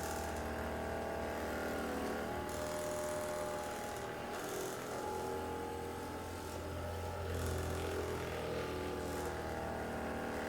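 Handheld electric massager running steadily against the back muscles, a low motor hum with a few higher tones above it.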